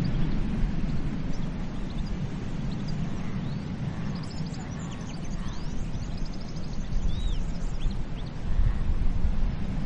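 Ocean surf washing onto a beach: a low, steady rush that eases off in the middle and swells again near the end. Small birds chirp and trill high above it throughout.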